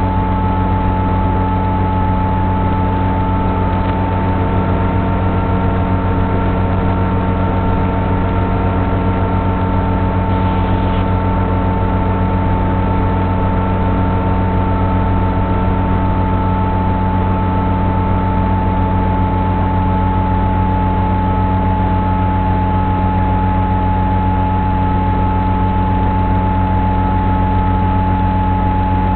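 Electric motor and propeller of a Sonic Model AR Wing FPV flying wing running at steady cruise throttle, a constant whine over wind noise, its pitch almost unchanged throughout.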